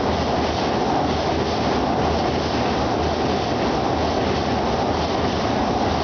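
Electric commuter train rumbling steadily across a steel girder bridge, its wheels on the rails and the bridge structure giving a continuous dense roar with a low pulse about once a second.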